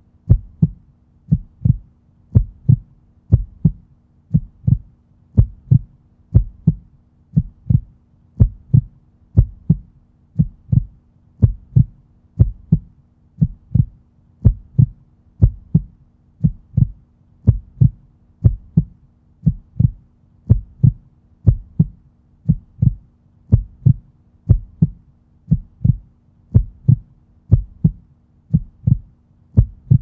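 Human heartbeat sound effect: low, steady thumping beats at about one a second.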